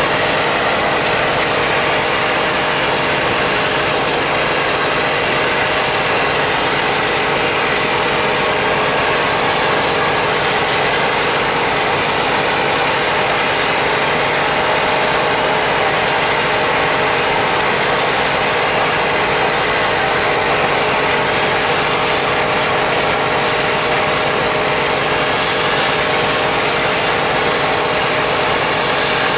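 Steady, unbroken mechanical running noise, like a motor or engine, with a faint hum.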